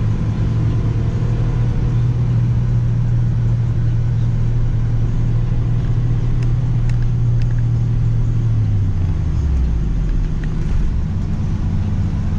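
Cabin sound of a 2005 Mini Cooper S R53 at highway speed: the steady drone of its supercharged 1.6-litre four-cylinder engine over road noise. About nine seconds in the engine note slides lower as the revs drop.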